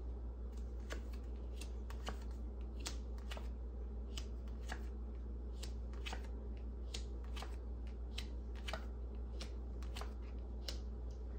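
A deck of reading cards being shuffled by hand: a run of soft, irregular card clicks and slaps, one to three a second, over a steady low hum.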